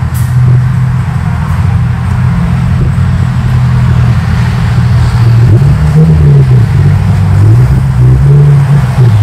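A car engine running steadily. About halfway through, its pitch rises and falls a few times as it is revved gently.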